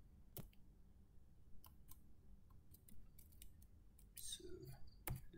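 Faint, scattered clicks of computer keyboard keys being pressed, a few taps at a time with short pauses between.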